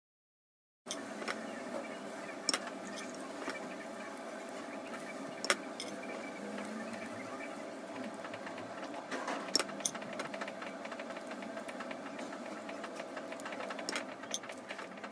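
Kitchen scissors snipping the rough edges off baked walnut-shaped cookie shells: a few sharp, scattered snips over a steady mechanical hum that starts about a second in.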